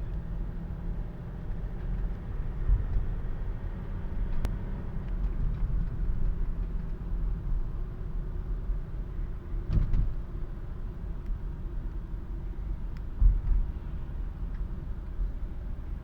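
BMW M57 2.5-litre straight-six diesel (code 256D2) running in a moving car: a steady low drone with a few brief thumps, the loudest about 13 seconds in. The owner reports a strange mixing noise from this engine under acceleration, loudest in second gear at around 2000 rpm.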